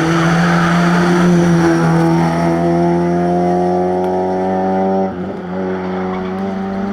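Classic rally car's engine running hard under load, its pitch climbing slowly as it pulls through a gear, then falling back sharply about five seconds in, as at a gear change, before pulling again.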